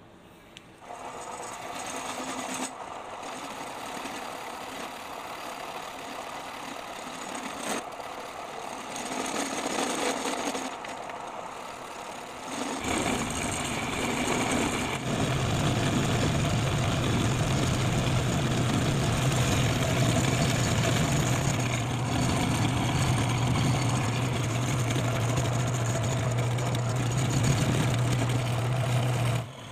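Homemade belt-driven lathe running: quieter mechanical noise at first, then about 13 seconds in the motor comes up and runs with a steady low hum, which cuts off suddenly at the end.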